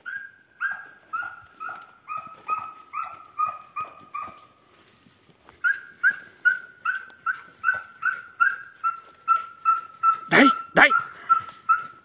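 Hunting dog barking over and over at a steady, fairly high pitch, about two to three barks a second, with a short pause near the middle. About ten seconds in, two sharp knocks land close together.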